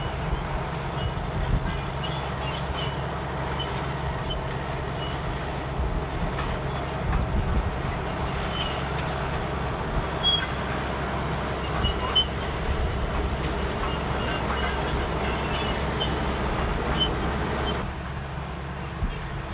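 Komatsu D65EX crawler bulldozer's diesel engine running steadily, with scattered metallic clinks and rattles from its steel tracks. The sound drops a little in level near the end.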